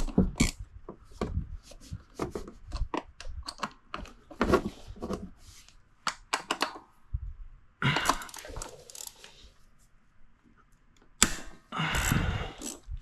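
Irregular clicks and knocks of hand tools working on metal, with a couple of longer scraping, rattling noises about two-thirds of the way in and near the end.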